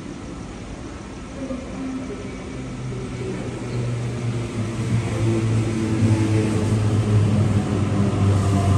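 A vehicle running with a low, steady-pitched hum that grows steadily louder from a few seconds in.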